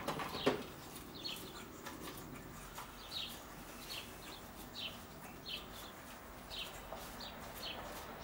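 Faint bird chirping: short, high calls repeated about once or twice a second. A light knock comes about half a second in.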